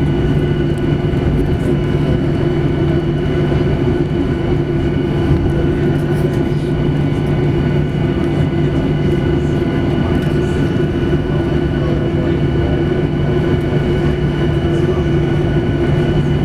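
Steady cabin noise inside a Boeing 737-800 on the ground after landing: its CFM56-7B engines idling give a steady hum with several held tones over a low rumble.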